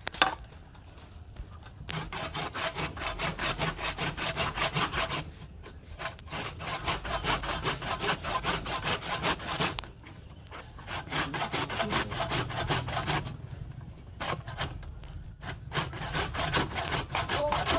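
Hand saw cutting through wood with quick, even back-and-forth strokes, in four spells of a few seconds with short pauses between them: a turned wooden vase being sawn off its waste block at the lathe's headstock.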